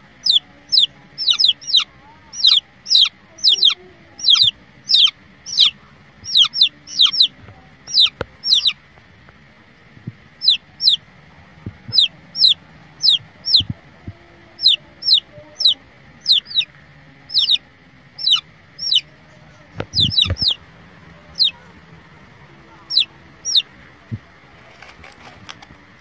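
Young chicks peeping: high calls, each falling in pitch, coming in quick runs of two or three and repeated over and over.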